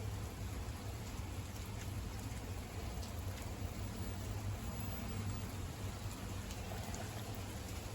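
Heavy thunderstorm rain falling steadily, a continuous hiss with scattered drops ticking, over a steady low rumble.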